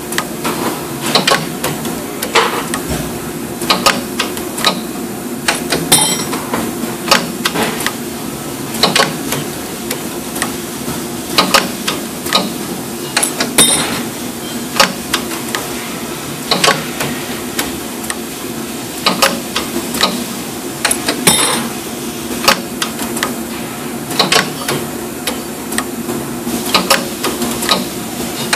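AIM 3D CNC wire bender working a steel rod: a steady machine hum with frequent sharp clacks and knocks as the bending head and clamps move and bend the wire. A louder clank comes about every seven and a half seconds.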